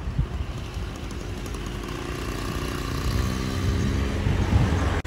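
Street traffic: a motor vehicle's engine running over a low rumble, its pitch rising gently from about two seconds in and loudest near the end.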